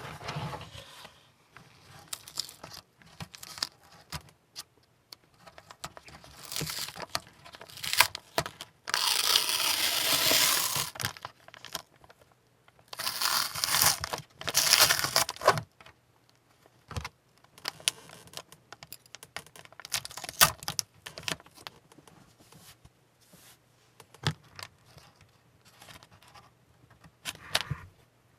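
Masking tape being peeled off a freshly painted plastic model ship hull, in irregular rips with light clicks and rustles of handling between them; two longer strips come away about a third and halfway through.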